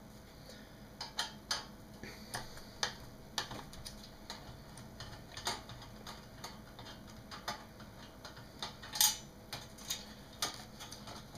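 Irregular light metallic clicks and taps from a screwdriver and fingers working the steel RF shield cage loose from an LCD monitor's power board. The loudest click comes about nine seconds in.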